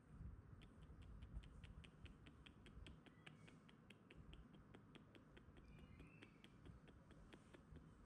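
Faint, rapid, even series of sharp clicks, about five a second, starting just under a second in and stopping shortly before the end, over a low rumble.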